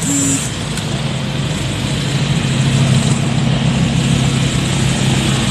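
Vehicle engines running steadily in slow street traffic, a low even hum that settles in about a second in. A short beep cuts off at the very start.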